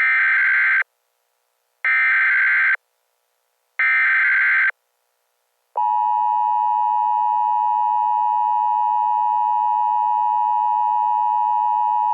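Emergency Alert System alert opening with three short bursts of the SAME header data tones, each just under a second, about a second apart. The steady two-tone attention signal follows, starting about six seconds in.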